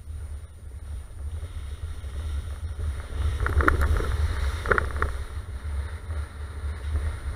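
Water splashing up in sheets as a Volvo XC90's tyres plough through deep puddles on a flooded lane, in two loud surges about three and a half and four and a half seconds in. Under it runs a steady low rumble of wind on the outside camera.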